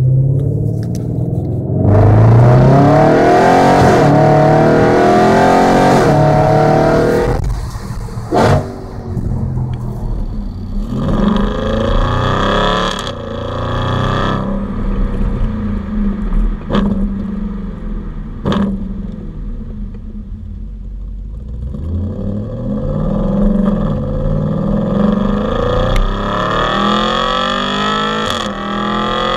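Audi RS5 engine and exhaust accelerating hard through the gears, each surge rising in pitch and falling back at the shift, with several sharp cracks from the exhaust between pulls. Much of it comes from a Capristo aftermarket exhaust, heard up close at the tailpipes.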